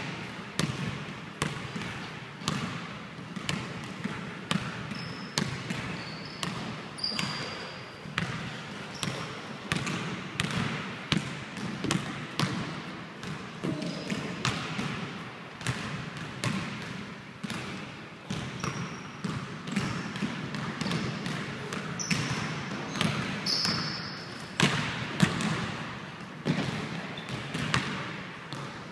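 Basketballs bouncing on a hardwood gym floor: a continual run of dribbling thuds with irregular spacing, ringing in a large gym hall. A few short high squeaks come in now and then, most around 5 to 7 s and 22 to 24 s in.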